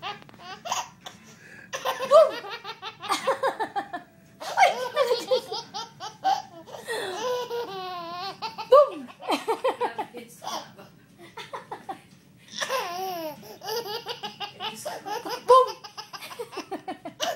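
Toddler laughing hard: several bouts of quick, rhythmic belly laughs and giggles, with short pauses for breath between them.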